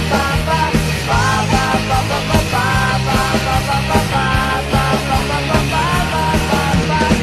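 Rock music with a steady beat, distorted guitars and a singing voice.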